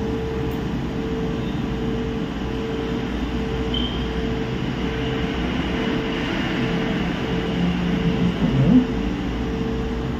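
Steady machine hum and rushing noise, as from a fan or air conditioner running, with a faint tone that pulses on and off evenly over it.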